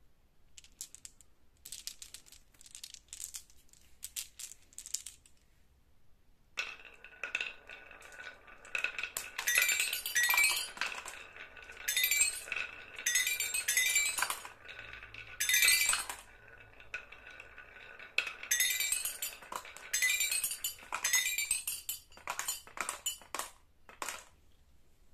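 Marbles rolling and clicking down a wooden wavy-groove marble slope, then rattling down a toy xylophone so that its bars ring in quick runs of notes, several times over.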